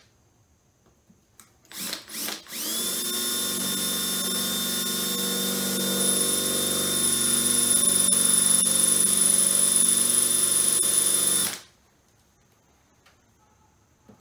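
Electric power tool motor, blipped twice, then run up to speed and held at a steady high whine for about nine seconds before stopping abruptly.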